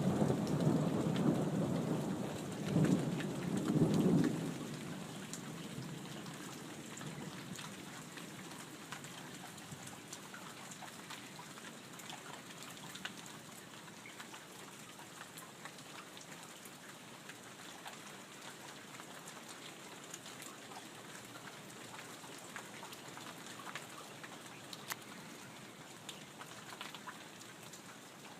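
Thunder rumbling loudly for the first four seconds or so, then dying away, over steady rain with scattered dripping.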